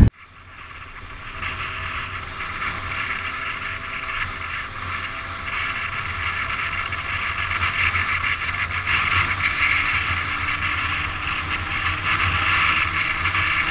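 Riding sound from a Yamaha Aerox scooter: its engine running steadily while wind rushes over the microphone. It fades in over the first couple of seconds, then holds steady.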